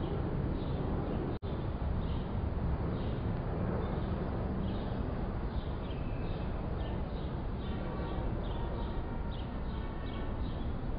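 Outdoor ambience: a steady low rumble with small birds chirping again and again over it. The sound cuts out for an instant about a second and a half in.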